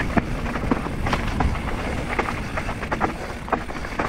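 Mountain bike riding fast down a dirt forest trail: a steady rumble of wind on the microphone and tyres on dirt, with frequent sharp clacks and rattles from the bike over bumps.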